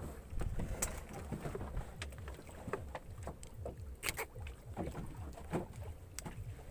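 Fish being unhooked with pliers: irregular small clicks and knocks of the pliers, hook and handling, over a low steady rumble.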